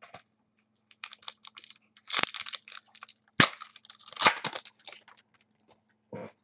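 Hands opening a pack of football trading cards and handling the cards: the wrapper crinkling and the cards clicking in a string of short, sharp crackles, the loudest about two, three and a half and four seconds in.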